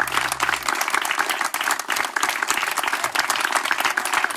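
Audience applauding, a dense steady clapping. A held low note from the band stops under a second in.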